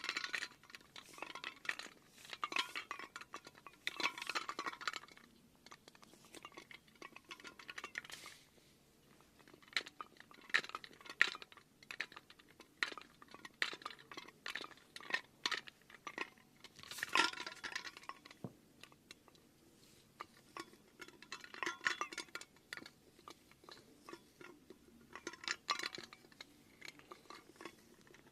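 Irregular bursts of small clinks and crunching, like small hard objects being handled or tapped, coming in clusters a second or two long with short pauses between.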